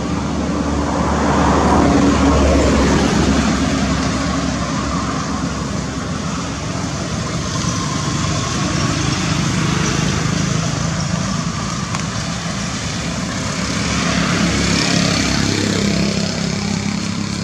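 Steady road-traffic noise with engine hum, swelling as a vehicle passes about two seconds in and again near the end.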